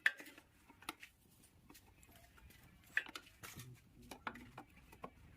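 Irregular sharp clicks and light metallic taps, as of small metal parts being handled. The loudest come right at the start and about three seconds in, with fainter ticks between them.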